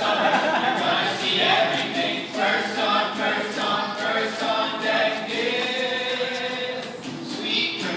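Small ensemble of voices singing a musical-theatre number together.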